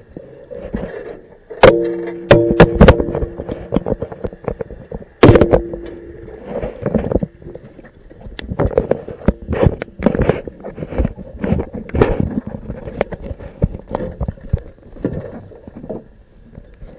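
Repeated knocks and clangs on a submerged metal cage, picked up by an underwater camera. The bars ring after the loudest strikes, about one and a half, two and a half and five seconds in, amid a steady run of smaller knocks.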